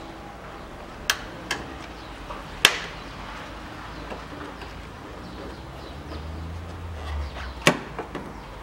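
A few sharp plastic clicks and knocks, the loudest about two and a half seconds in and another near the end, as a gloved hand works at the snap clips on the lid of a Smart Fortwo 451's air filter housing.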